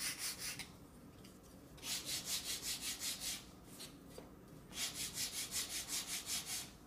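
Sandpaper on a wooden sanding block rubbed in quick back-and-forth strokes against the edge of a thin wooden board, rounding off its corner. It comes in three bouts of about five strokes a second: one ending about half a second in, one around two to three seconds in, and one from about five seconds in to near the end.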